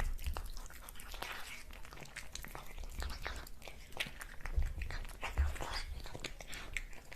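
Close-miked ASMR eating sounds: irregular crunchy bites and chewing crackles, several a second.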